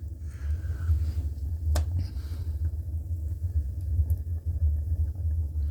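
Clayton add-on wood furnace running with a steady low rumble, its blower moving warm air, with one sharp click about two seconds in.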